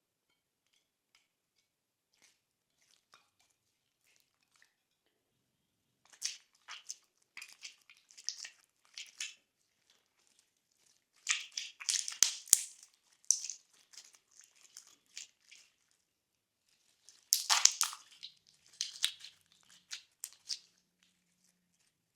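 Glossy slime being pressed and worked by hand, giving dense crackling and popping in three spells after a near-silent start.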